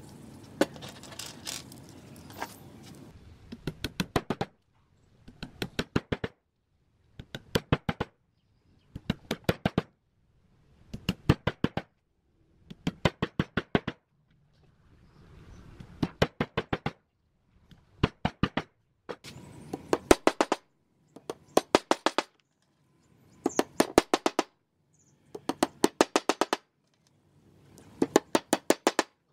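Claw hammer tapping wooden dowels into glued holes in a pine board: short runs of four to six quick, sharp strikes, repeating about every two seconds with silence between. The runs begin about four seconds in, after a faint hiss with a couple of single clicks.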